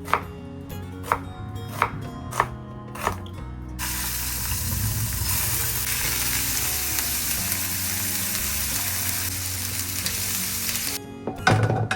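Food sizzling as it fries in hot oil in a pan, starting suddenly about four seconds in and running loud and steady until a clatter near the end. Before it come a few sharp knocks.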